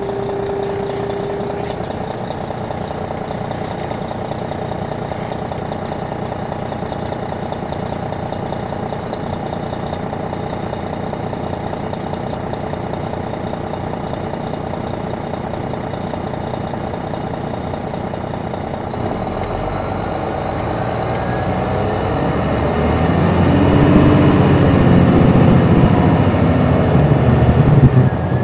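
Detroit Diesel Series 60 engine of a 2002 MCI D4000 coach, heard from on board, running steadily. About two-thirds of the way through it grows louder and deeper as the bus accelerates, and a faint high whine rises and falls near the end.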